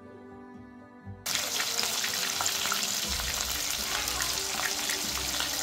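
Soft background music, then about a second in a sudden loud sizzling and crackling of turmeric-marinated rohu fish steaks shallow-frying in hot oil in a pan.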